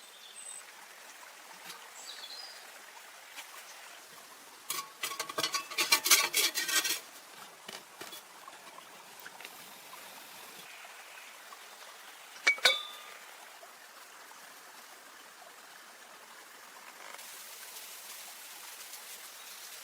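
Clinking, with ringing tones after each strike: a quick run of clinks about five seconds in, then a single ringing clink near the middle, over a steady hiss of running water.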